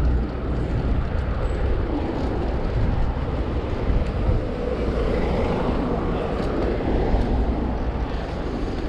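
Steady low rumble of city road traffic, heard from a moving bicycle with wind buffeting the action camera's microphone.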